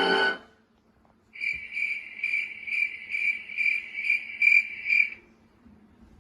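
Cricket chirping sound effect: a high, steady trill that pulses about two to three times a second, starting about a second in and stopping after about four seconds.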